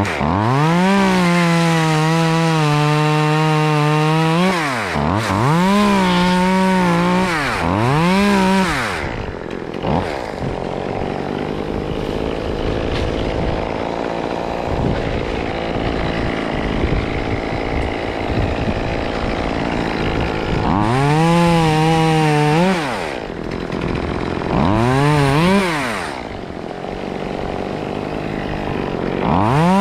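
A two-stroke chainsaw revving up to full speed and back down in repeated bursts of one to four seconds, the longest near the start. Through the middle stretch it runs lower and rougher.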